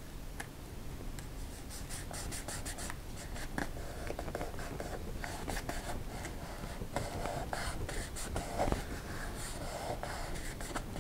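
Fingertips rubbing and pressing a vinyl cutout down onto a carbon-fibre wing skin: a run of small scratchy rubs and light taps.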